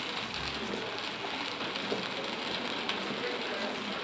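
A steady crackling hiss dotted with many small ticks, like rain falling on a surface.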